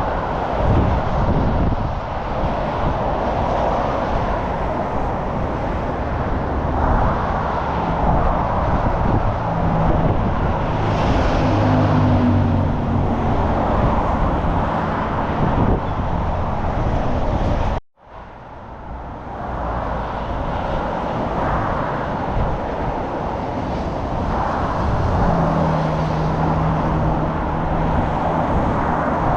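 Steady road traffic noise of cars going by, tyre and engine sound with engine hum swelling a few times. The sound cuts out abruptly for a split second a little past halfway, then returns.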